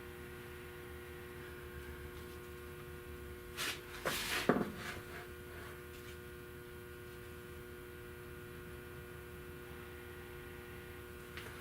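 Steady electrical hum, with a short cluster of knocks and rattles about four seconds in.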